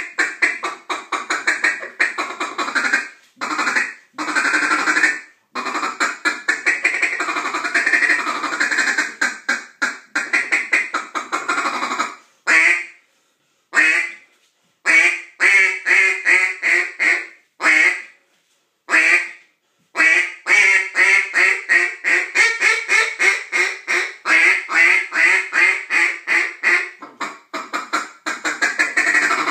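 Hand-blown duck call sounding duck quacks: long runs of quick quacks for about the first twelve seconds, then a handful of single quacks with short pauses between them, then another long fast run of quacks.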